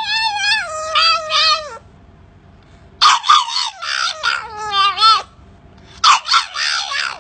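Puppy trying to bark, giving high-pitched, wavering calls in three bouts with short pauses between; some calls slide downward in pitch.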